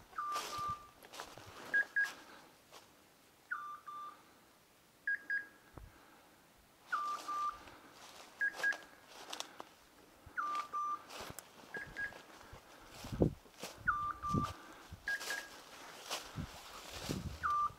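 Repeating electronic beeps, a high double beep alternating with a slightly lower one about every second and a half to two seconds: the point-mode signal of a hunting dog's beeper collar, meaning the dog is holding point. Footsteps crunch and rustle through dry leaves and brush underneath.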